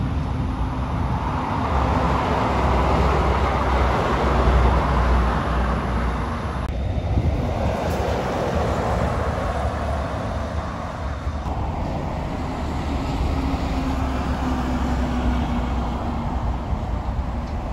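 Heavy trucks, garbage and roll-off trucks among them, driving past on a road: a low engine drone with tyre noise that swells and fades as each goes by. The sound changes abruptly twice partway through, where one clip cuts to the next.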